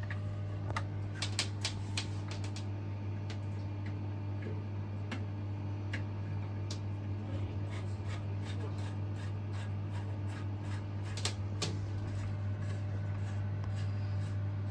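Light plastic clicks and knocks of a toilet cistern's flush siphon being worked back into place and its fitting done up, scattered and irregular, over a steady low hum.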